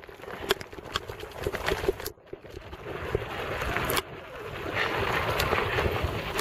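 Mountain bike rolling down a gravel and dirt track: a steady rush of wind noise and tyre crunch with occasional knocks and rattles, growing louder over the last couple of seconds.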